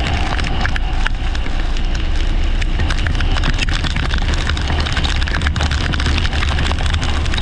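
Leisure racing kart running at speed in the rain: a steady engine and wind rumble, overlaid with dense crackling from rain and spray.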